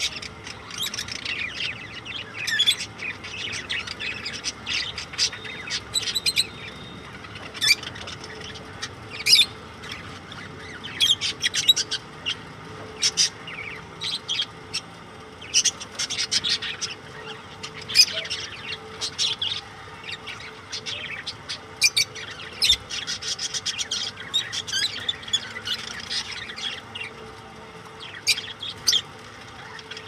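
Caged lovebirds chirping and squawking: short, shrill, high calls every second or so, some in quick runs.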